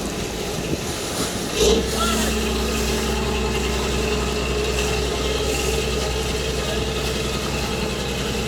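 Boat engine running with a steady low hum, which sets in about a second and a half in, just after a brief loud knock.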